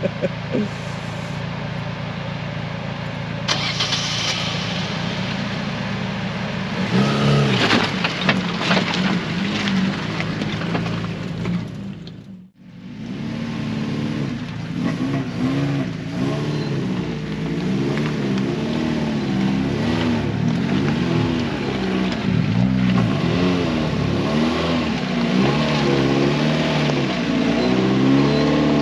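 Fiat Panda 4x4's engine running under load, its pitch rising and falling again and again as the throttle is worked. There are knocks and clatters about seven to nine seconds in, and the sound cuts out briefly near the middle.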